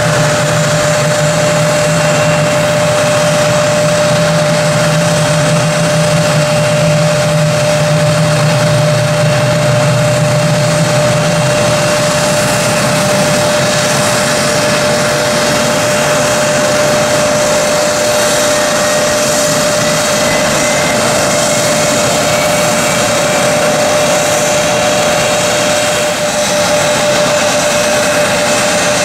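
Embraer ERJ-175 jet airliner standing on the ramp with its engines running, a steady jet whine over a constant rush. A low hum underneath stops about twelve seconds in, and a faint rising whine comes in during the second half.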